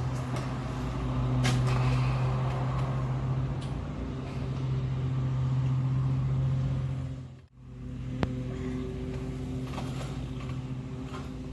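Small motorcycle engine droning at a fairly steady speed during a bump start in second gear, swelling and easing a little. The sound drops out abruptly for a moment about halfway through, then carries on.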